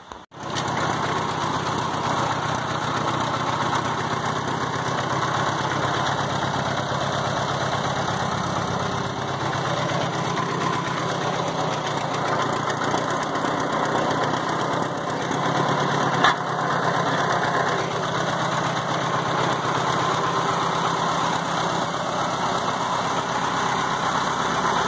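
Engine running steadily at an even speed, with a single sharp click about sixteen seconds in.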